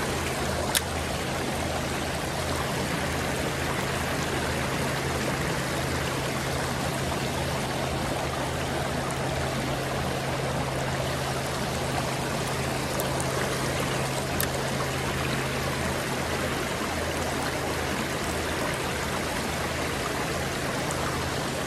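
Shallow creek water running over a rocky riffle, a steady rushing flow, with one brief click about a second in.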